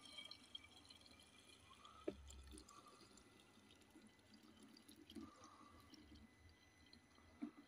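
Cleaning fluid poured from a plastic jug into a spray-gun bottle: a faint trickle of liquid, with one sharp click about two seconds in.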